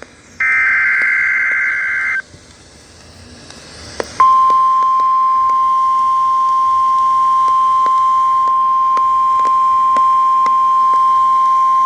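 NOAA Weather Radio emergency alert: a burst of buzzing SAME digital header data, then a couple of seconds of radio hiss, then about four seconds in the single steady 1050 Hz warning alarm tone begins and holds.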